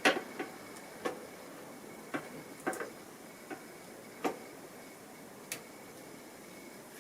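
Light, irregular clicks and taps of small repair tools and phone parts being handled and set down on a work surface, about eight over five seconds.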